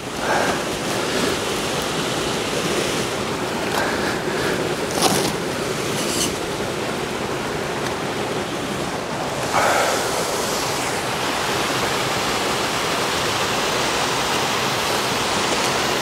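Waterfall rushing steadily, with a few faint brief knocks about five and six seconds in.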